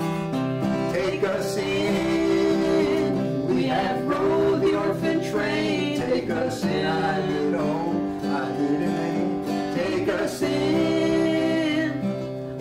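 Acoustic guitar accompaniment to a slow folk ballad, with a voice singing a held, wavering melody over it.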